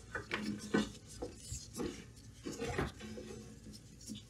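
A new rubber transmission drive belt being fed by hand through a riding mower's frame: irregular light rubbing, scraping and small taps as the belt slides against the metal frame, brackets and belt guards.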